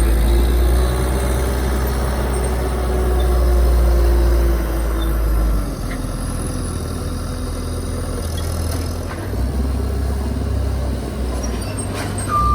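Truck engine running as it maneuvers, a loud low rumble with a slowly shifting engine note that eases off about halfway through. A reversing-alarm beep sounds right at the end.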